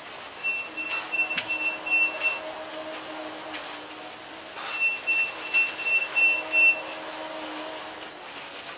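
A high electronic beeping, about four pips a second, in two runs of about two seconds each, over a low steady hum.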